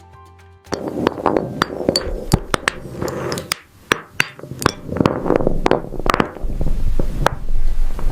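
Glass crunching and crackling, with many sharp, irregular clinks and cracks, in the manner of glass fruit being cut or broken. It starts suddenly just under a second in.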